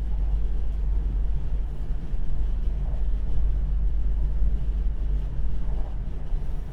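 Siemens Desiro electric multiple unit train running, a loud steady low rumble with no clear changes.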